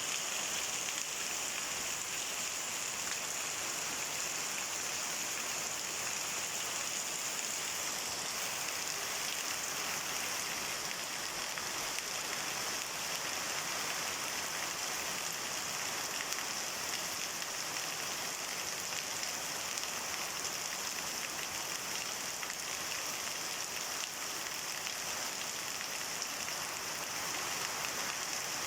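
Heavy, steady rain falling and pattering on surfaces, an even hiss without pause.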